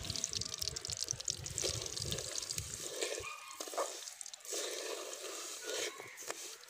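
Sugar sizzling and crackling in hot ghee in a metal karahi. From about three seconds in, a metal slotted spatula scrapes and stirs it against the pan in short strokes.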